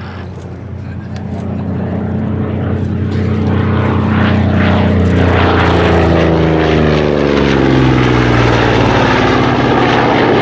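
Goodyear FG-1D Corsair's Pratt & Whitney R-2800 radial engine and propeller as the fighter flies past. It grows louder over the first few seconds, then its pitch falls as it goes by.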